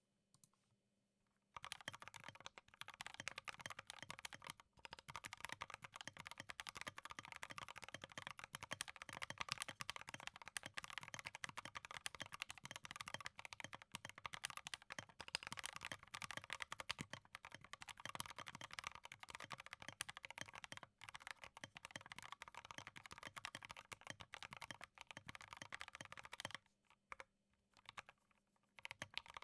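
Fast continuous typing on a Drop Alt mechanical keyboard with Gateron Ink Black linear switches and OSA keycaps, a dense run of key strokes. It starts about a second and a half in, stops suddenly near the end, and a few single keystrokes follow.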